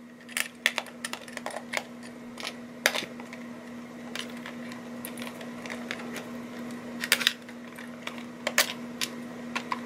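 Scattered clicks and light clattering as hands unwind wire leads with metal alligator clips from a small metal tin, over a steady low hum.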